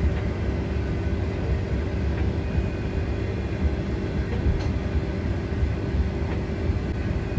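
Steady low rumble with a constant hum over it, holding an even level throughout.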